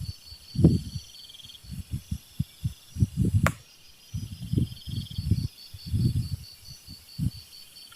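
Wind buffeting the microphone in irregular low rumbling gusts, over a steady pulsing chorus of crickets. A single sharp click sounds a few seconds in.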